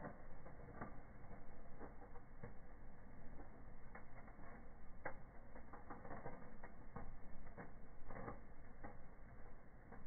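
Wood fire in a fireplace crackling: irregular sharp snaps and pops, thickest around the middle and later part, over a steady low rumble of the burning.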